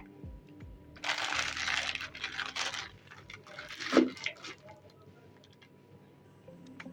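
Slime squished and pressed by hand, giving a dense crackly, popping noise for about two seconds, then one loud thud about four seconds in, followed by a few faint pops.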